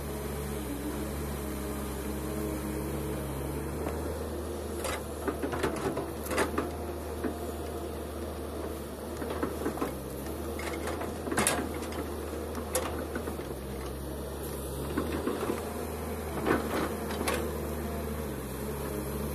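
Kobelco SK210LC hydraulic excavator's diesel engine running steadily under digging load, with several sharp knocks and clanks of the bucket against earth and stones at intervals, the loudest about eleven seconds in.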